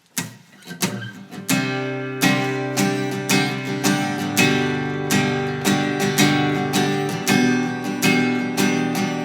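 Acoustic guitar strummed: a few separate chords at first, then from about a second and a half in a steady, even strumming rhythm.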